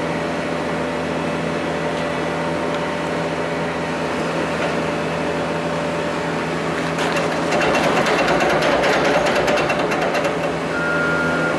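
Steady mechanical hum of running machinery, with several constant low tones. About seven seconds in, a rapid rattle of clicks joins it for about three seconds, and a brief steady high tone sounds near the end.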